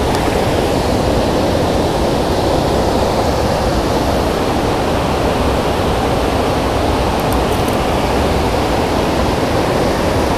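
Steady rush of water pouring over a river spillway.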